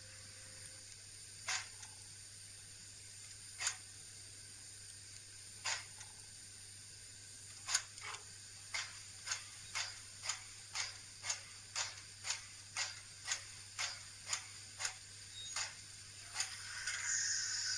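Sound decoder in an N-scale BR 80 steam tank locomotive playing steam exhaust chuffs through its small speaker as the model pulls away. The chuffs come about every two seconds at first, then speed up to about two a second and ease off near the end, when a longer steam hiss sets in, over a faint steady hum.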